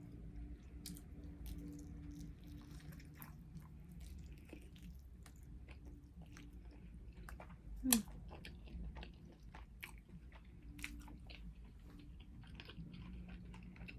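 Close-up mukbang chewing and biting of Wingstop food: quiet wet mouth clicks and small crunches, with one louder mouth sound about eight seconds in.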